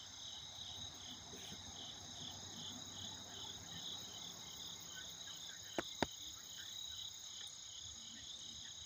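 Steady chorus of crickets and other night insects, high-pitched, with a regular pulsing trill in it. Two sharp clicks come close together about six seconds in.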